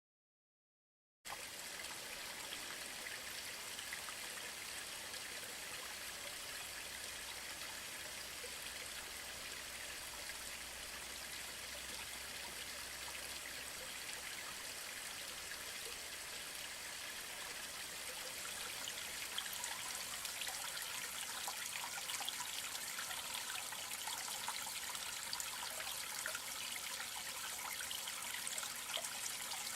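Stream water running, a steady hiss that starts suddenly about a second in and gets a little louder past the halfway point.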